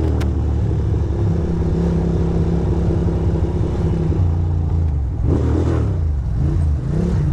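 2006 Ducati Monster 620's air-cooled L-twin engine running at low speed in town traffic. About four seconds in the engine note drops as the bike slows, then it picks up again near the end.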